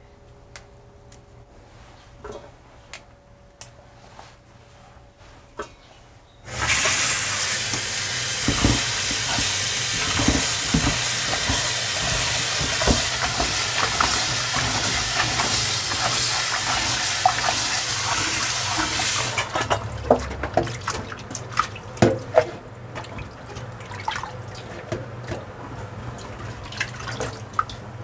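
Kitchen tap turned on and water rushing steadily into the sink for about thirteen seconds, starting about six seconds in, then shut off; drips and small knocks of things being handled in the wet sink follow.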